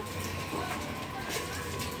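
Chickens and other poultry in their pen, softly calling while they feed, over a faint steady hum.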